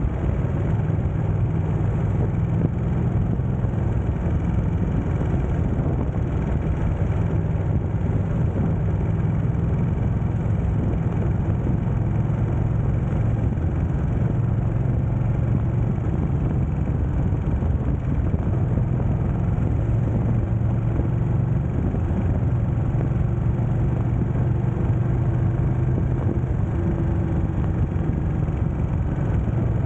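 Sport motorcycle engine running steadily at freeway cruising speed, under an even rush of road and wind noise.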